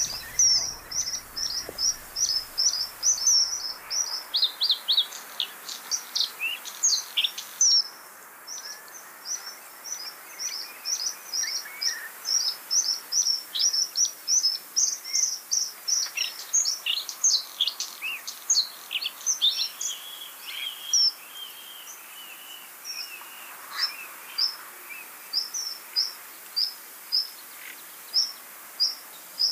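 White-spotted bluethroat singing: a long, busy run of short, high chirping notes, several a second, mixed with quick downward-sliding notes, over a faint hiss of marsh background.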